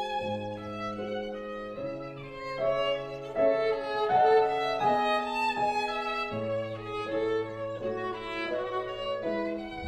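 Background music: a slow bowed-string melody of held notes changing every second or two over a low sustained bass.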